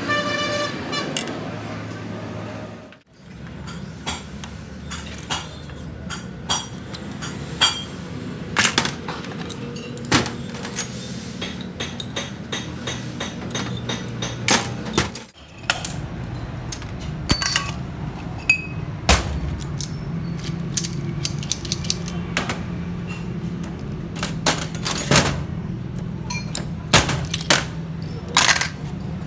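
Hand tools and small metal parts of a tractor diesel injection pump clicking and clinking irregularly as the pump is worked on, over a steady low hum. The sound drops out briefly twice, about three seconds in and again about halfway through.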